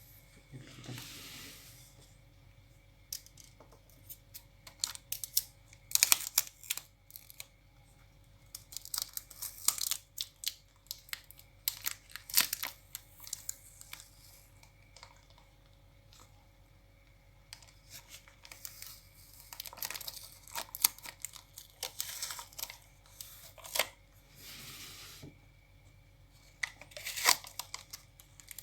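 Packaging being opened by hand: irregular bouts of tearing and crinkling of tape and plastic, with sharp crackles, the loudest bouts about six seconds in and again near the end.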